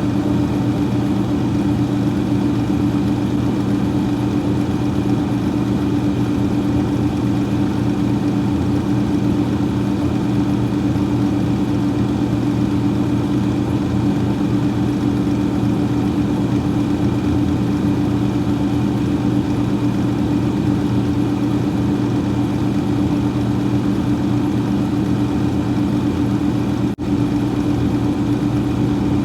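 Freezer fan running with a steady, unchanging hum made of several held tones, with a faint higher whine above them. The sound drops out for a split second near the end.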